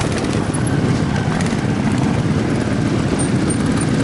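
Trial motorcycle engine running steadily, a fast low pulsing, as a rider works the bike up onto a rock step.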